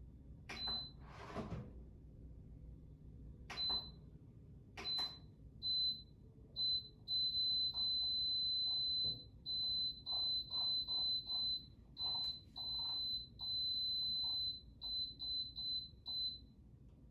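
Toaster oven control panel beeping as its buttons are pressed while it is being set: a run of short beeps at one high pitch, some held for one to two seconds, each with a soft tap of the button. A brief whoosh about a second in.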